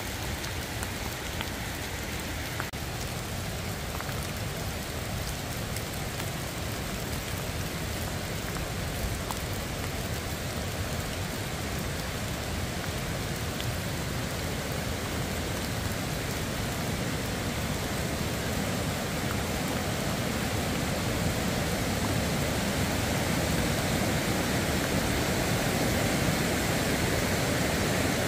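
Steady rain falling on the trail and the hiker's gear, with rushing river water growing gradually louder over the second half.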